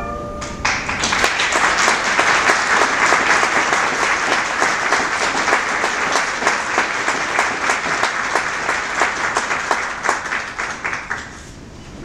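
A chord of handbells is damped right at the start. Then a large crowd applauds for about ten seconds, dying away near the end.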